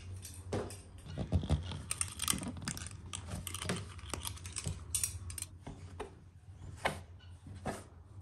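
Hands working soft bread dough, and a metal dough scraper cutting and tapping on a floured wooden board: a run of irregular soft taps and clicks.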